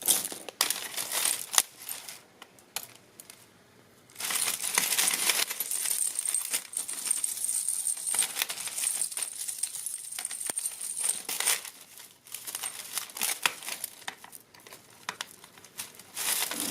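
Costume jewelry (metal chains, crystals and beads) clinking and jangling as tangled pieces are handled and pulled apart: scattered sharp clicks, then several seconds of dense jingling with rustling about four seconds in.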